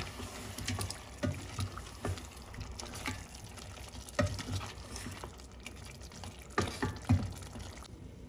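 Wooden spoon stirring chicken pieces frying in oil in a steel pot, knocking against the pot again and again over a soft sizzle, while the chicken and spices are being sautéed. Near the end a glass lid is set on the pot and the sizzle falls quieter.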